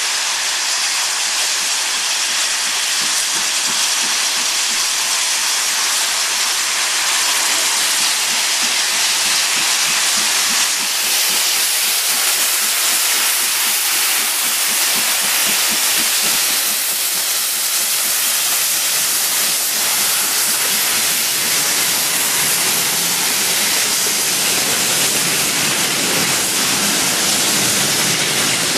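LMS Black 5 steam locomotive 45305, a two-cylinder 4-6-0, departing with a loud, steady hiss of steam, its cylinder drain cocks blowing off at the start.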